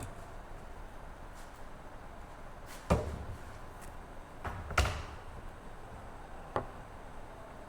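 A few sharp knocks over a faint steady background: two loud ones about three seconds in and just under five seconds in, a softer one between them and a last one past six and a half seconds.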